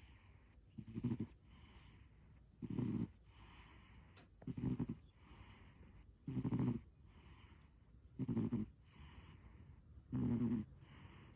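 American Shorthair cat snoring in its sleep. Each breath gives a loud, low, rasping snore, about one every two seconds, followed by a softer, hissy breath.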